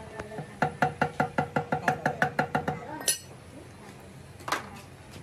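Rapid metal-on-metal tapping from a steel rod striking the vise-held bronze valve, about six strikes a second with a ringing tone, ending in one louder clank.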